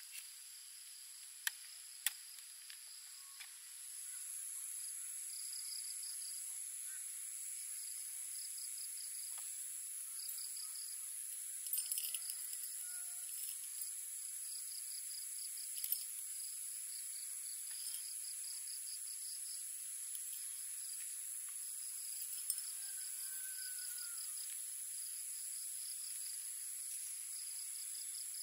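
Evening insect chorus: crickets chirping in quick pulsed trains over a steady high trill, louder from about four seconds in. A few light clicks and a short rattle around the middle as coffee is tipped into a small steel cup.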